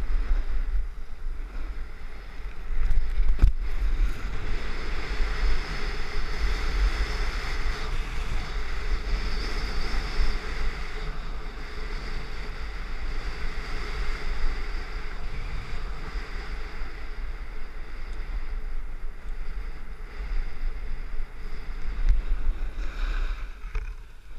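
Snowboard sliding and scraping over packed snow, a steady hiss, with wind buffeting the microphone throughout. A sharp knock about three and a half seconds in, and the noise drops away near the end as the board slows.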